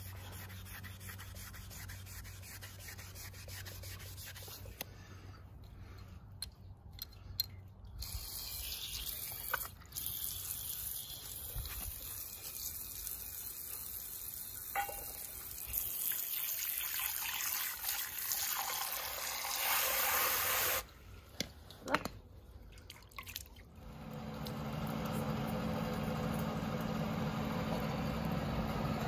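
A scouring pad rubbing on hammered copper, then water from a garden-hose spray nozzle hissing over the copper pot and lid as they are rinsed. For the last few seconds a steady mechanical hum takes over beside a charcoal forge fire.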